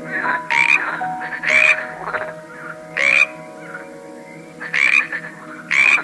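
Frog croaking in five short calls, roughly a second apart, over a soft background melody of held notes.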